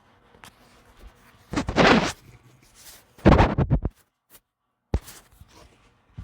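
Sleeping pit bull giving two loud, noisy snorting breaths about a second and a half apart, the second broken into several quick pulses, then a short click near the end.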